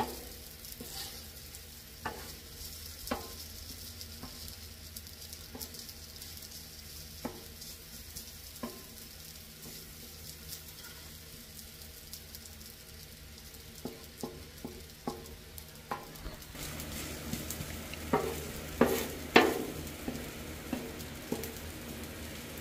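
Food sizzling on a Blackstone flat-top griddle, with a slotted metal spatula clicking and scraping against the steel plate every second or so. The spatula work gets busier in the last few seconds, with a few louder clacks.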